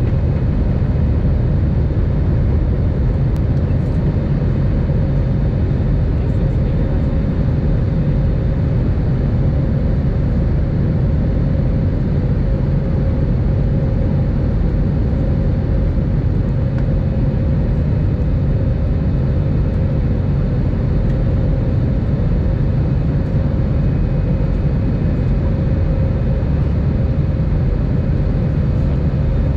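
Airbus A319 jet engines and airflow heard inside the cabin during the climb after takeoff: a steady deep rumble and rushing hiss, with a faint steady hum over it.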